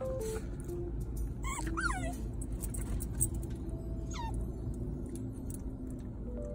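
American Eskimo puppy whining: a few high whines that fall sharply in pitch around one and a half to two seconds in, and one more about four seconds in, over soft background music.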